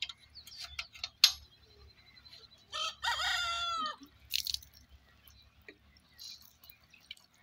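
A rooster crows once, about three seconds in, a call of about a second that falls in pitch at its end. Before it come sharp metallic clicks and taps as tools work on the chaff cutter's blade nuts.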